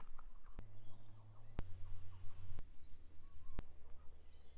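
Faint birds chirping over a quiet outdoor background, with four sharp clicks about a second apart.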